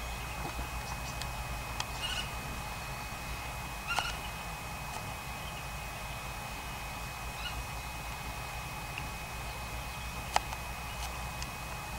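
A few short bird calls, the loudest about four seconds in, over a steady low outdoor rumble, with one sharp click near the end.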